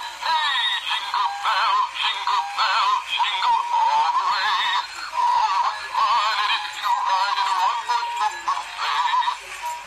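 Animated Santa Claus doll playing an electronic singing tune through its small built-in speaker, a thin wavering melody with no bass.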